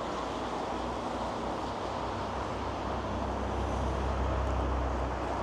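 Steady city road traffic noise, with a low rumble that grows louder around three to five seconds in.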